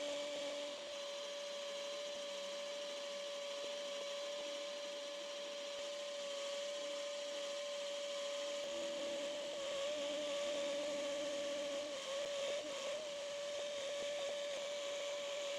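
Metal lathe running with a steady whine while a cutting tool rubs into a small steel workpiece, cutting grooves into it.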